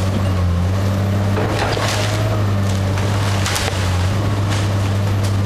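Komatsu tracked excavator's diesel engine running with a steady low hum, while timber from the wrecked house cracks and splinters a few times, the sharpest crack about three and a half seconds in.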